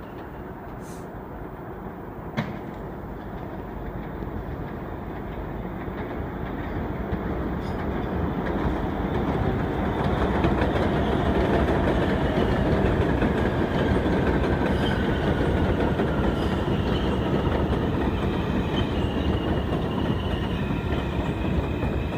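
New York City subway train running on elevated track. The rumble and wheel clatter grow louder over about ten seconds and then hold, with a faint whine falling in pitch in the middle and high wheel squeal near the end.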